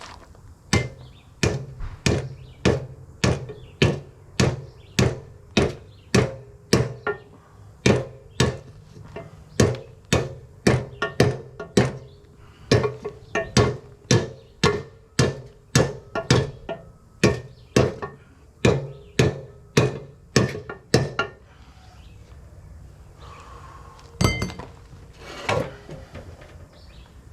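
Hammer blows on the steel housing of a Ford 9-inch rear axle, beating out a dent: a steady run of ringing metal strikes, about one and a half a second, then a pause and two more blows near the end.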